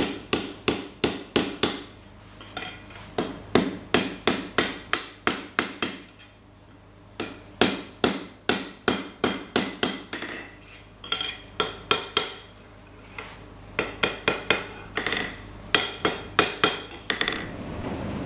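Hand hammer striking a red-hot steel bar on an anvil in quick runs of about three blows a second, with short pauses between the runs. Each blow rings briefly.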